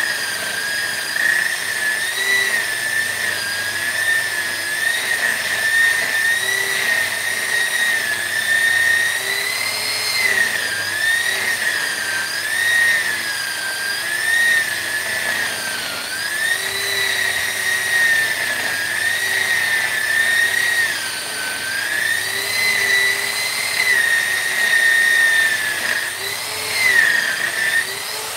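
High-speed rotary carving tool running continuously on wood, its high whine dipping in pitch and recovering every second or two as the bit is pressed into the work and eased off.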